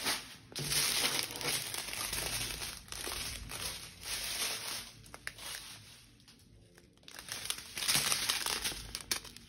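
Plastic diamond-painting drill bags crinkling as a strip of them is handled, in two spells of rustling: a long one starting just after the start and a shorter one near the end.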